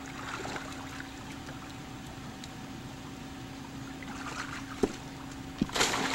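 A small child jumping feet-first into a backyard swimming pool, a loud splash of water near the end, over a steady low hum.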